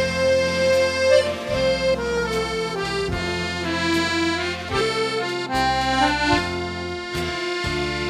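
Piano accordion playing a melody of held notes over left-hand bass notes that change about every second.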